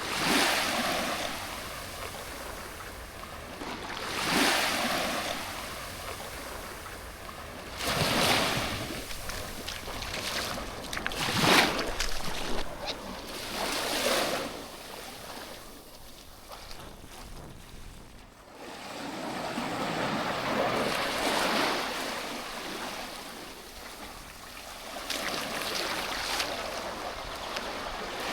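Waves breaking and washing up a sandy beach, each surge swelling and fading every few seconds, with a lull in the middle.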